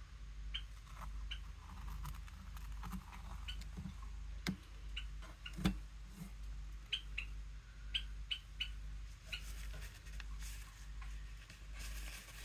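Small clicks, taps and light scratches from a painting being handled on a clipboard, with two sharper knocks about four and a half and nearly six seconds in, over a steady low hum.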